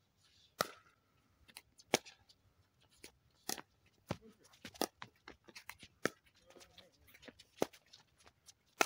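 Pickleball rally: solid paddles striking the hard plastic ball with sharp pops roughly every one to one and a half seconds, starting with the serve, with fainter clicks between the hits.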